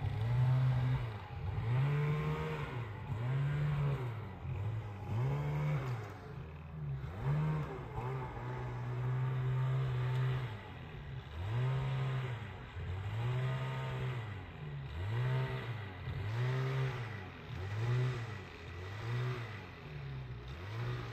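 Snowmobile engine revving up and dropping back over and over, about once a second. The rider is off the sled beside it in the creek bed, working a stuck sled through the crossing.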